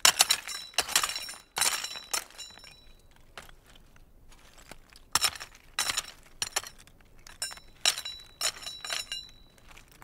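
Loose lava stones clinking and grating against one another as they are moved to cover a newly planted vine cutting, in irregular clusters of sharp, glassy knocks. The knocks are loudest at the start, die down for a few seconds in the middle, and come back in several bunches near the end.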